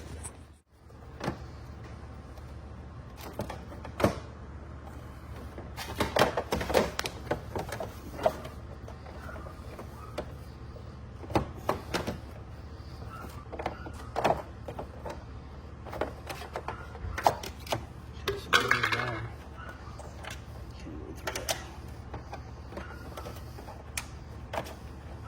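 Plastic car grille parts being handled and fitted together: scattered clicks, knocks and rattles of hard ABS plastic at irregular intervals, over a steady low hum.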